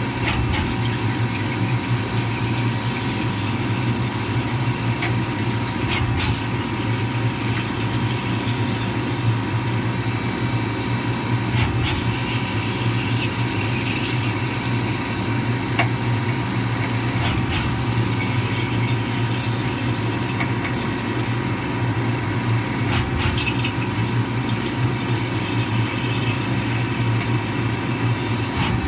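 CNC lathe deep-drilling titanium bar with a long twist drill under flood coolant: a steady machine hum with a constant whine, coolant spraying, and a few short clicks spread a few seconds apart.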